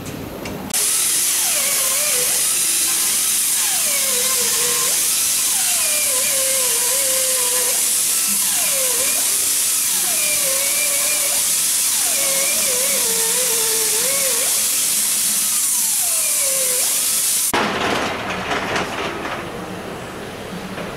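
Air drill running at speed with a loud hiss of exhaust air, its pitch sagging each time the bit bites into the aircraft's aluminium structure and rising again as it frees, about seven times. It stops abruptly near the end, and a little clatter follows.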